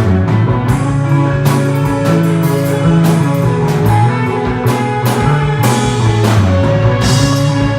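Live three-piece rock band playing: electric bass holding low notes, electric guitar, and a drum kit with cymbals keeping time.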